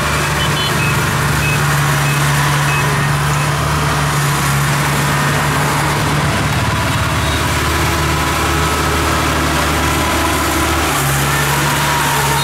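Kubota DC-70 combine harvester's diesel engine running steadily at a constant speed.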